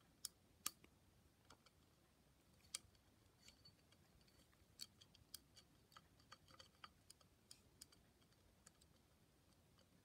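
Near silence with faint, irregular small clicks and taps from fingers handling wires at a ceiling fan's pull-chain switch housing.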